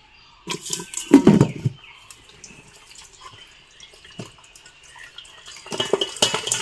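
Water splashing in a pot in short noisy bursts near the start and again near the end, with a single knock about four seconds in as a glass pot lid is handled.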